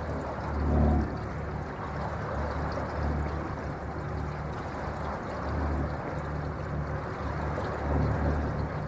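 Water rushing and lapping along the hull of an electric boat under way, with no engine heard. A low rumble swells and fades every couple of seconds, loudest about a second in and near the end.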